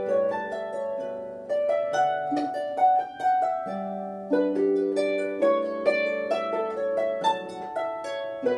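Lever harp playing a tune: a quick run of plucked melody notes over ringing bass notes, with a chord struck near the end.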